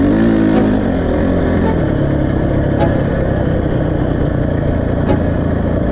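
Motorcycle riding along on the road: the engine's pitch shifts up and down in the first second, then an even rush of noise takes over.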